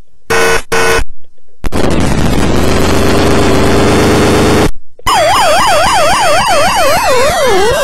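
Circuit-bent toy steering wheel's electronic siren: two short stuttering bursts, then a harsh noisy blast, then from about five seconds in a fast warbling siren that slows and drops in pitch near the end.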